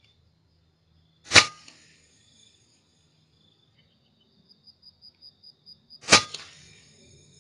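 Two shots from a suppressed FX Impact M3 .22 PCP air rifle, each a sharp crack with a short ringing tail, about five seconds apart.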